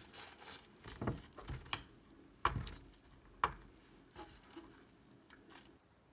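Gloved hands handling lens tissue and a plastic bottle: soft rustling with a series of sharp clicks, the two loudest about a second apart near the middle.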